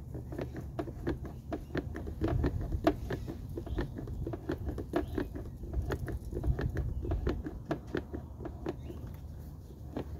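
Hand-operated quart gear-lube pump being stroked over and over, a steady run of short clicks about three a second, as 80W-90 gear oil is forced up into the outboard's lower unit through the bottom drain hole until it comes out the top vent. A low rumble sits underneath.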